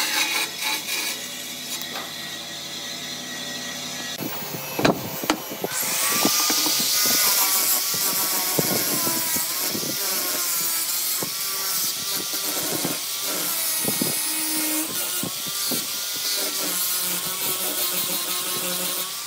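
A bandsaw running as it cuts a wooden board, then after a few knocks an angle grinder with a sanding drum sanding the board's curved edge, its motor pitch wavering as it bears on the wood.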